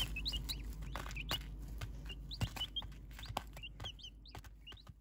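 Newly hatched ducklings peeping: many short, high, rising peeps scattered throughout, with small taps as they peck about in wood-shaving bedding, fading a little toward the end.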